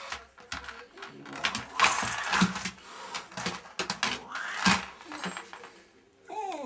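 A cat hissing in short noisy bursts at a young dog that wants to play, amid sharp clicks and knocks of paws and claws on a hard floor. Near the end comes a short whining call that falls in pitch.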